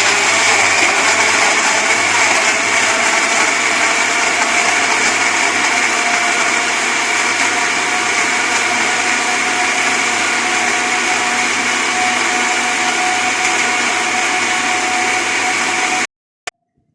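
Electric blender running steadily, blending milk, strawberries and sugar into a milkshake, with a steady motor whine. It is switched off about sixteen seconds in and cuts off suddenly, followed by a brief click.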